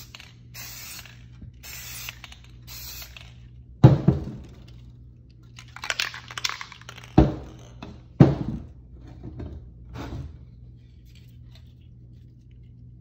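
Three short hisses from an aerosol spray-paint can in the first few seconds, then several sharp knocks and thuds, the loudest about four, seven and eight seconds in, over a steady low hum.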